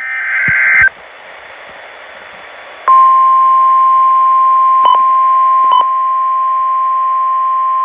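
Emergency alert over weather radio: the end of a harsh, warbling SAME data burst, then about two seconds of radio hiss, then the steady single-pitch 1050 Hz warning alarm tone starting about three seconds in, which signals that a warning, here a flood warning, is about to be read. Two brief clicks cut across the tone, and after the second one near six seconds it drops a little in volume.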